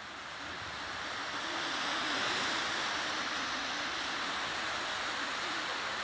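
A jet of pink flame hissing steadily, swelling over the first couple of seconds and then holding even.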